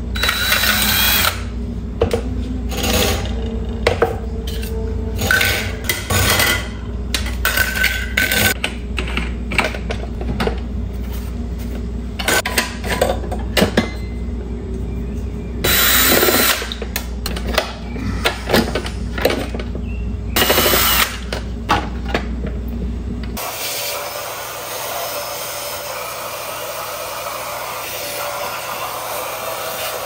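Cordless drill-driver running in many short start-stop bursts as it backs out screws from a table fan's grille and motor housing. From about 23 seconds in, a brush scrubs dust off the fan motor with a steady rubbing hiss.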